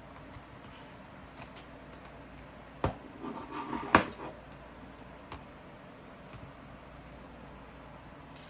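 Two sharp clicks about a second apart, with brief rattling handling noise between them, over a faint steady hiss.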